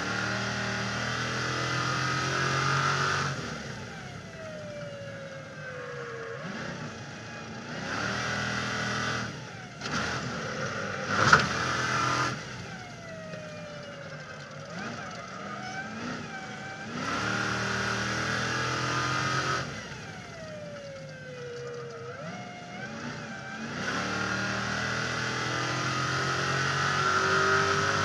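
Stadium Super Truck's engine heard from a roof-mounted camera, alternating hard-throttle stretches with lifts where the engine note falls away. There is a sharp bang about eleven seconds in, the loudest moment.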